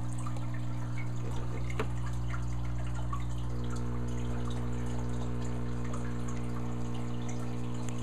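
Aquarium bubbler: a steady hum of its air pump under the bubbling, trickling and dripping of the rising bubble curtain, with small pops and ticks throughout. The hum's tone shifts slightly about three and a half seconds in.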